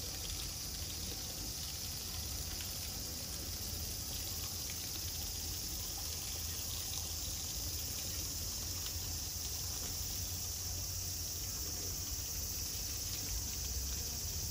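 Steady hiss and splash of water jetting from a keeper's hose onto an elephant.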